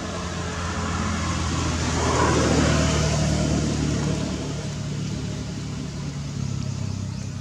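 A motor vehicle engine running close by, with a steady low hum that grows louder about two seconds in and then eases off.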